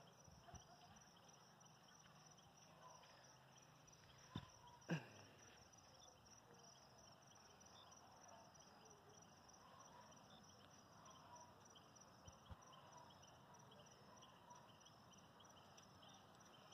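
Crickets chirping faintly and steadily in a near-silent night. Two short knocks a little over half a second apart, about four seconds in, are the loudest sounds.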